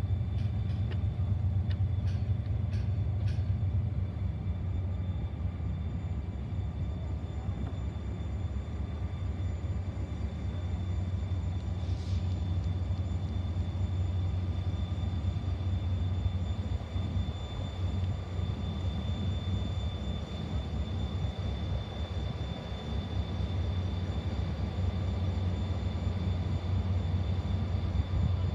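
KORAIL 7400-class diesel locomotive idling while standing at the platform, a steady low drone.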